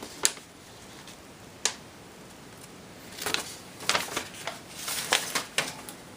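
Handling noise as a motherboard is turned over and looked over: a sharp click about a quarter second in, another near two seconds, then a run of clicks and short rustles from about three seconds to near the end.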